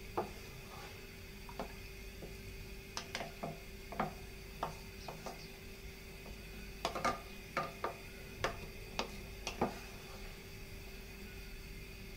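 A spatula knocking and scraping against a metal pot of rice, water and milk: a scatter of short, sharp clicks, bunched about three seconds in and again around seven to ten seconds, over a steady low hum.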